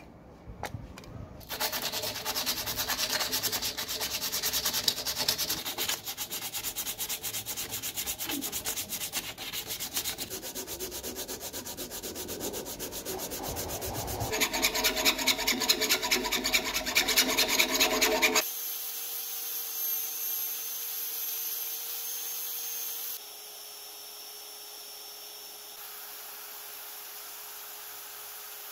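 Sandpaper rubbing on filled metal padlock parts: quick, even back-and-forth strokes that grow louder for a few seconds and stop abruptly a little past the halfway mark, leaving a faint steady hum.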